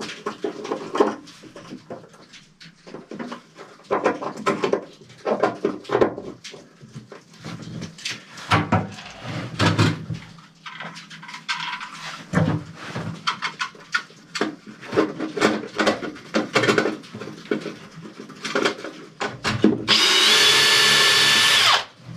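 Irregular clicks and knocks of small parts and hand tools being handled at an electrical panel, then a cordless drill running steadily for about two seconds near the end, the loudest sound.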